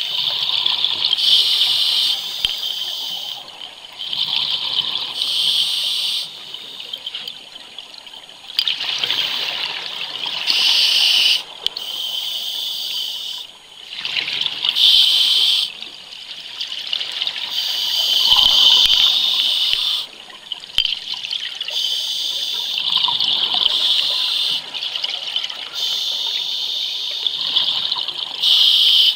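Scuba diver breathing through a regulator underwater: bursts of hissing and bubbling repeat every two to three seconds, one burst per breath.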